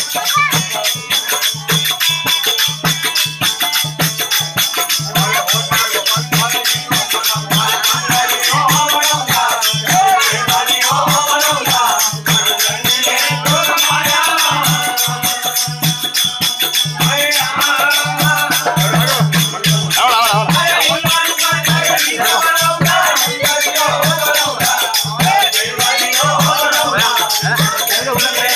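Live Indian folk music: a dholak drum beating a steady rhythm under constant metallic jingling percussion, with men's voices singing along from about eight seconds in.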